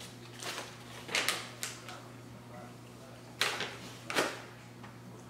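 Plastic snack packets and tissue paper crinkling and rustling as snacks are handled and pulled from a box, in several short spells, the loudest about a second in and again between three and four seconds in.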